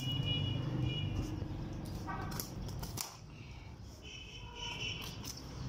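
A butcher's knife cutting and scraping meat away from camel rib bones, with scattered short clicks. A low hum runs under the first three seconds, then drops away.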